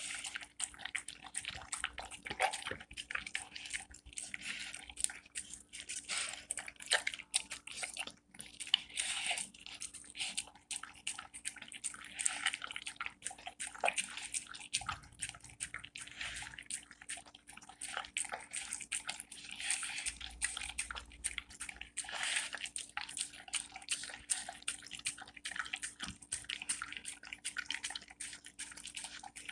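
Dog eating soft, moist cooked dog food from a bowl: a continuous run of quick, irregular wet smacks and licks, with some chewing.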